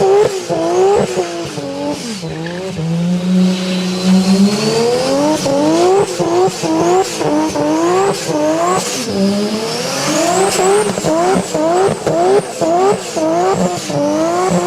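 Toyota Supra engine revving hard, its pitch climbing and then dropping sharply over and over, about twice a second, with a calmer, lower stretch a couple of seconds in.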